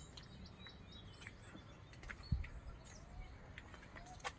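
Faint outdoor ambience with scattered short bird chirps and ticks, and a dull low thump about halfway through.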